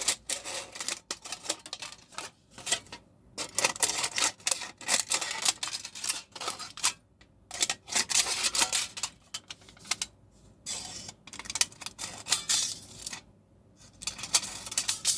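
Thin aluminium foil from a food container crinkling and crackling as it is worked by hand, in irregular runs of crackles with brief pauses about 3, 7, 10 and 13 seconds in.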